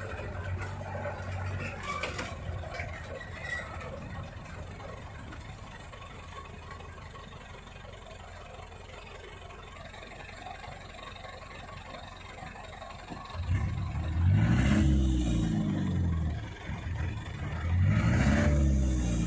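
Truck engine working through deep mud: it runs low and steady for most of the stretch, then is revved hard twice near the end, the pitch climbing and falling each time.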